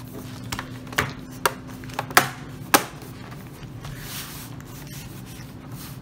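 Sharp plastic clicks as hands press down the bottom cover of a Dell G7 7588 laptop and its clips snap into place. About six clicks come in the first three seconds, followed by a faint steady hum.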